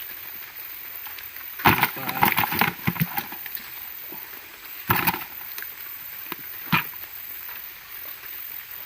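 Knocks and clatter as caught giant freshwater prawns are handled one by one while being counted: a run of rattling knocks about two seconds in, then single knocks near five and near seven seconds, over a steady background hiss.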